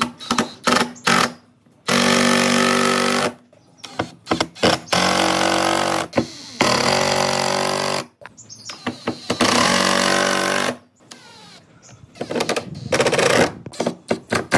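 Cordless impact driver with a DCA 20 V battery, driving screws to fasten speaker drivers into a cabinet. It hammers in four runs of about a second and a half each, with short spurts and clicks between them and near the end.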